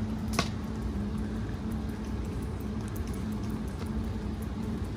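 Steady rain falling on the trees and pattering on a van's awning, with a faint steady hum underneath and a single sharp tap about half a second in.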